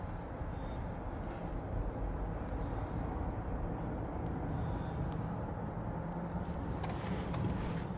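Steady low rumbling outdoor background noise, with a few faint clicks near the end.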